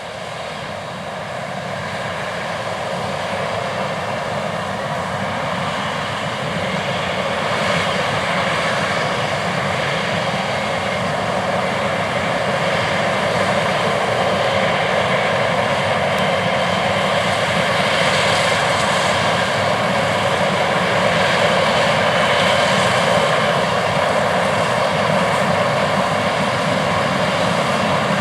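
John Deere S690 combine harvesting corn with its 16-row corn head: a steady, loud drone of the big diesel engine and threshing machinery, growing louder over the first several seconds.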